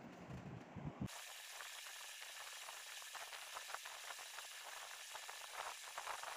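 Faint scratchy crackle of a thin paintbrush dabbing fabric paint onto a cloth shawl: many small irregular ticks over a steady hiss, starting about a second in.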